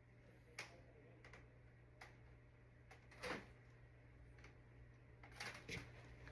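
Near silence over a low steady hum, broken by a handful of faint, scattered clicks and knocks, a small cluster of them near the end.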